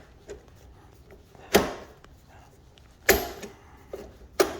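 Three sharp knocks with a short ring, spaced about one and a half seconds apart, plus a few lighter clicks: parts knocking as the loosened upper triple clamp of a Kawasaki ZX-6R is worked up and off the fork tubes by hand.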